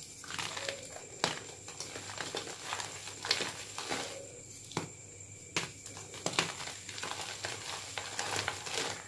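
Plain gym chalk chunks crumbling and crunching as they are squeezed and rubbed to powder between bare hands: irregular sharp crunches over a steady gritty rustle of chalk dust.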